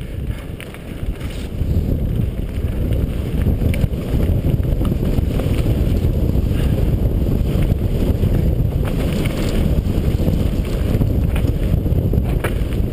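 Wind buffeting the microphone of a camera on a mountain bike descending a rough forest trail at speed, over a steady rumble of tyres on dirt and rock, with scattered rattles and knocks from the bike.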